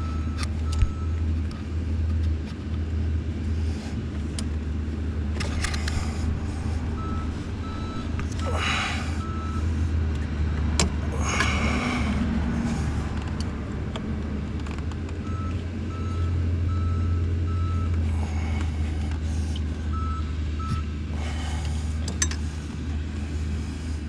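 A vehicle engine idling with a steady low drone, with spells of short, repeated beeps at one pitch every few seconds. A few brief clicks and rustles of hand-tool work come through.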